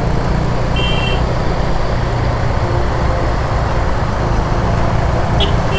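Motorcycle riding through traffic: steady engine and road noise. A short high-pitched tone sounds about a second in and again near the end.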